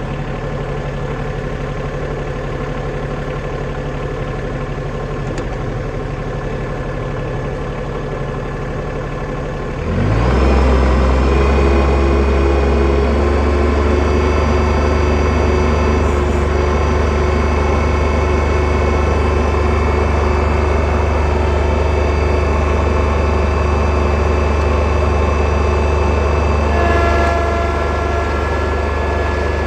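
Tractor engine idling steadily, then throttled up about ten seconds in, its pitch rising to a louder, steady working speed.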